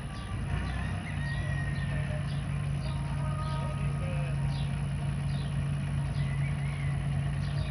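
Compact farm tractor's engine running with a steady low hum, with songbirds chirping over it again and again.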